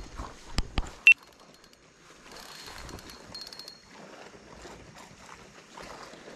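Two handling knocks and a short, sharp high beep about a second in. Then a faint, recurring ticking rasp from the fishing reel's line clicker, which grows near the end: a fish is taking line on a run.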